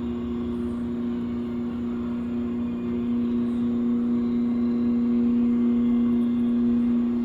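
Koike Aronson welding positioner's electric drive running under pendant control, a steady motor-and-gearbox hum that grows a little louder partway through.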